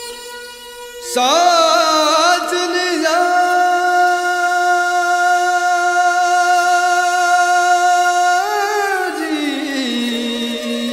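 Background music: over a steady drone, a solo voice enters about a second in with a wavering, ornamented line, holds one long note, then slides down to rest on the drone near the end.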